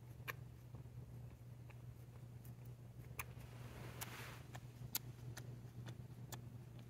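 A cat grooming itself: faint, irregular wet clicks of its tongue licking fur, with a soft rustle of fur on the fleece blanket about four seconds in, over a steady low room hum.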